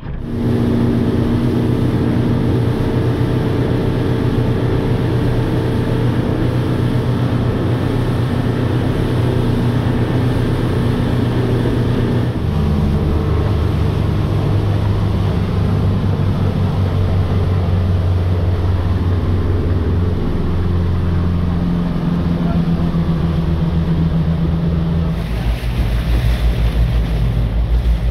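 Tour boat's engine running under way, with wind and water rushing past. The engine note shifts in steps about twelve, twenty and twenty-five seconds in.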